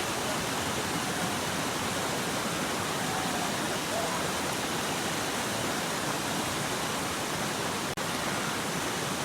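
Mountain valley stream rushing over rocks, a steady even rush of water.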